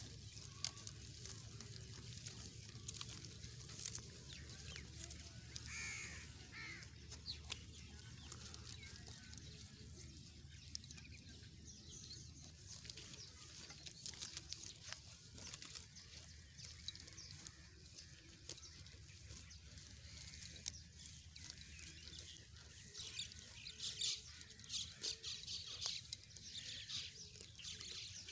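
Dumba sheep tearing and chewing grass close by: a steady run of soft, crisp crunching clicks. Birds call in the background, one about six seconds in and again near the end.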